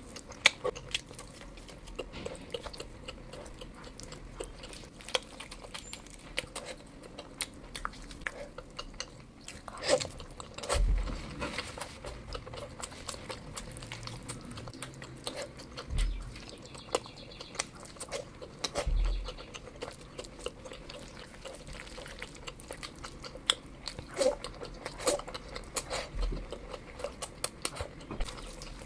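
Close-miked chewing and wet mouth sounds of a person eating curry and rice, many small smacking clicks, with a few low dull thumps now and then.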